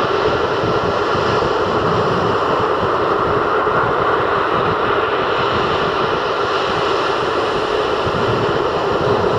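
Surf from a rough sea breaking continuously along the shoreline: a loud, steady rush of water noise with no distinct single wave crashes.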